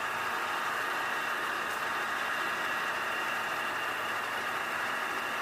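Volvo 960 engine idling steadily.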